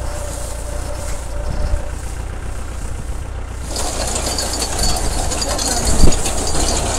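Tractor engine running steadily under a tractor-mounted reaper-binder; about three and a half seconds in, the reaper's cutter and binding mechanism start working with a steady rattling clatter as wheat stalks are fed in, with one sharp knock about six seconds in.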